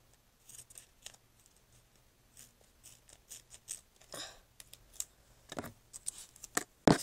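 Scissors snipping and handling purple duct tape: a series of irregular short clicks and brief rasps, the loudest a sharp click near the end.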